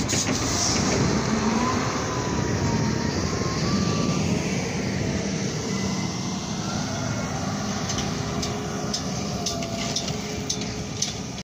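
Heavy earthmoving machinery running at a construction site, a steady rumble, with a faint wavering high tone about two seconds in.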